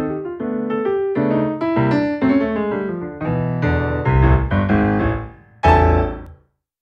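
Background piano music: a run of struck notes and chords that ends on a final low chord just before six seconds, then stops.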